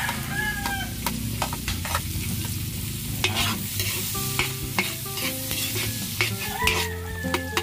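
Chopped onion and garlic sizzling in hot oil and margarine in a large metal wok, stirred with a metal ladle that scrapes and clinks against the pan many times.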